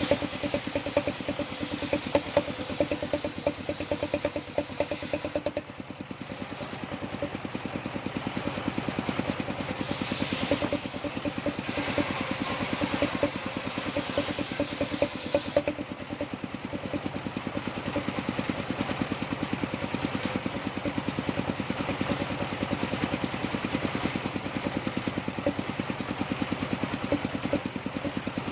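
Sawmill machinery running steadily, an engine's rapid even pulses throughout, dipping briefly about six seconds in, with added hiss from about ten to sixteen seconds in.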